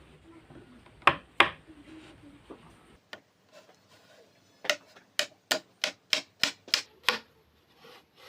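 Hammer blows on wood: two sharp strikes about a second in, then a run of eight quick, even strikes at about three a second.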